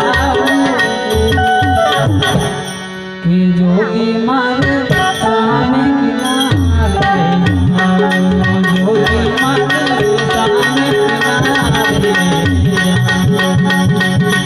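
Harmonium and tabla playing in raag Bhairavi: held harmonium notes under a gliding, ornamented melody line, with low tabla strokes. The music drops briefly about two seconds in, then comes back at full strength a second later.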